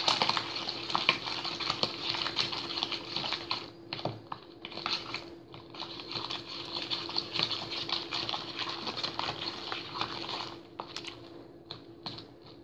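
Fingers kneading and poking freshly made glue slime in a plastic tub: a busy run of small wet crackles and squelches, which thins out near the end. A steady low hum sits underneath.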